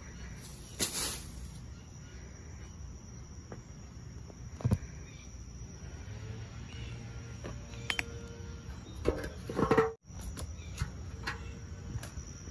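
Steady high trill of crickets, with scattered rustles and knocks close by: a brief swish about a second in and a louder clatter just before ten seconds.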